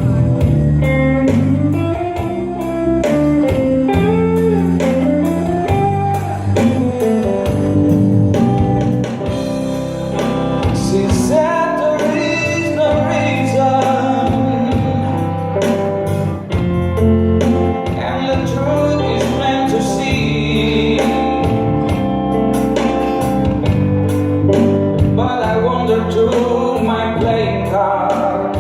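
Live band music: a voice singing over guitar, with a steady beat.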